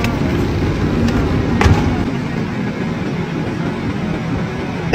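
Loud, steady rumbling noise of a car, heard from inside it, with a short sharp knock about one and a half seconds in.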